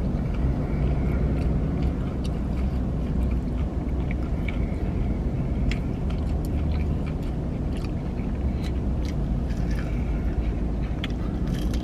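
Chewing and biting into fried chicken, with scattered small crunchy clicks, over a steady low rumble from the vehicle.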